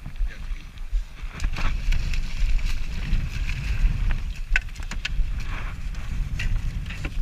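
Wind buffeting the microphone with a steady low rumble, and a few light clicks and knocks scattered through it.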